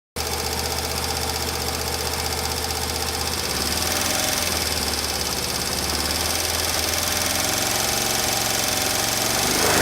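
Honda Super Cub single-cylinder engine, bored up to 105cc with a big-valve head, running steadily, a little higher from about four seconds in and again near the end. The owner is hunting an unexplained clicking noise (カチカチ音) from this engine that appears once speed settles.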